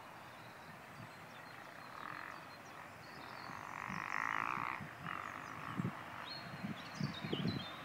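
Distant diesel locomotive horn sounding three times: a short blast about two seconds in, a longer and louder one about four seconds in, then another short one. Faint birdsong chirps around it.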